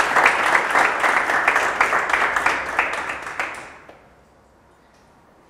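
Audience applauding, a dense patter of hand claps that fades away about three and a half seconds in, leaving only quiet room noise.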